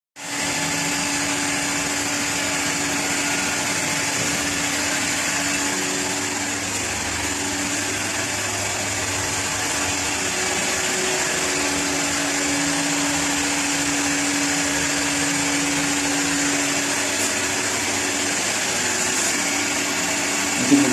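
A small electric motor running steadily with a constant airy hiss and a faint hum that comes and goes.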